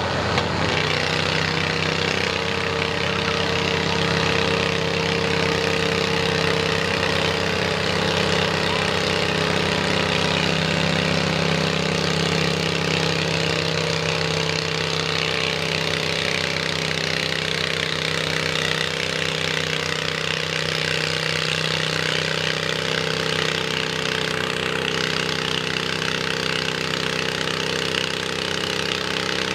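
A garden tractor engine runs hard and steady under full load as the tractor drags a weight-transfer sled down the pulling track. Its pitch holds nearly constant throughout.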